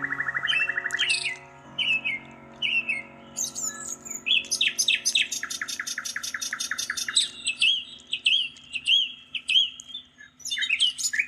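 Birds chirping: short repeated calls, then fast rattling trill phrases from about four seconds in, over steady sustained tones.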